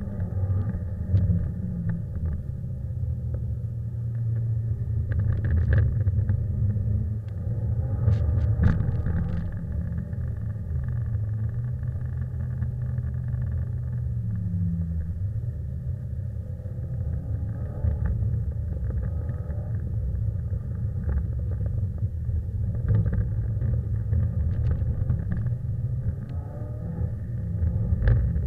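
Subaru's flat-four boxer engine heard from inside the cabin while the car drifts, a deep muffled rumble that rises and falls with the throttle, with a few sharp clicks.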